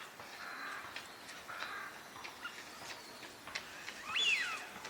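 Male Eurasian wigeon whistling: one loud high whistle that rises and falls about four seconds in, with fainter duck calls before it.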